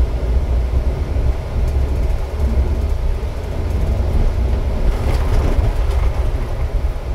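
Steady low rumble and road noise of a moving vehicle, heard from inside.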